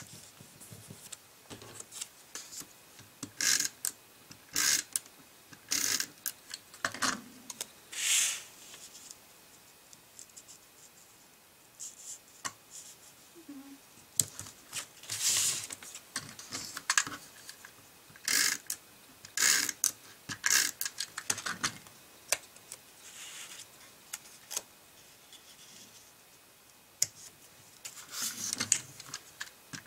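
Cardstock and small die-cut paper pieces being handled: short, scattered rustles, scrapes and light taps against the work surface, with quiet gaps between them.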